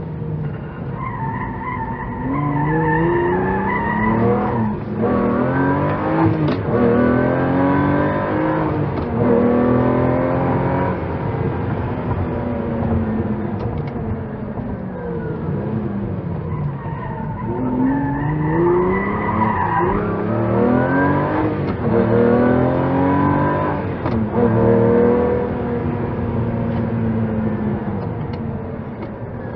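Lamborghini sports car engine revving hard as it accelerates through the gears. Its pitch climbs and drops back at each upshift, in two long runs, one early and one in the second half.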